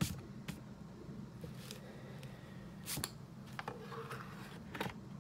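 A few light clicks and knocks as a stainless steel grounds cup is handled and brought back to an electric coffee grinder's spout, over a steady low hum.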